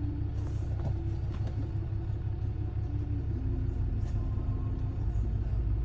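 A steady low rumble, with a few faint short snorts from a chihuahua trying to sneeze.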